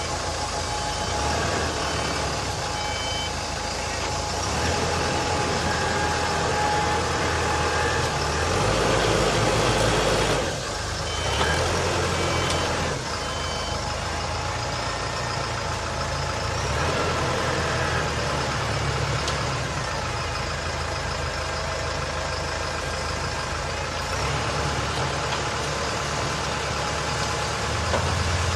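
AS3.5 self-loading concrete mixer's engine running steadily, its note shifting as the machine works. Short repeated beeps of a warning alarm sound near the start and again about eleven seconds in.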